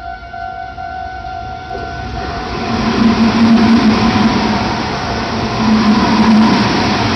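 Level-crossing alarm bell ringing with a steady tone. About two seconds in, a Meitetsu train's running noise rises over it and stays loud as the train goes by the crossing.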